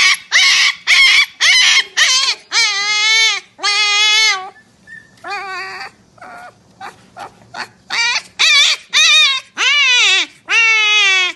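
Husky puppy yelping and howling in a string of short, high cries, each about half a second to a second long, with a lull of about two seconds a little after the middle.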